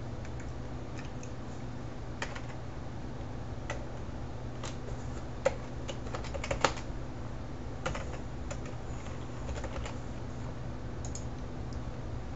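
Computer keyboard keys tapped in scattered short runs while a PIN and SecurID passcode are typed into a login prompt, over a steady low hum.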